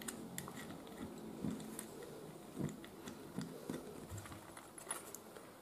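Faint, scattered small clicks and scrapes of a screwdriver turning a terminal screw on a plastic extension-board socket.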